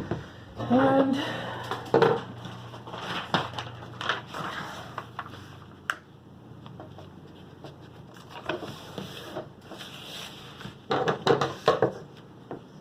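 Rolled diamond-painting canvas crinkling and rustling as it is pushed back into its tube, with scattered handling clicks and taps. There is one sharp click about six seconds in.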